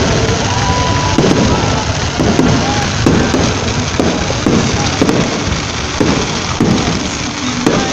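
Fireworks going off continuously: a dense crackle with many small sharp pops. The loudness stays steady, with no single big boom standing out.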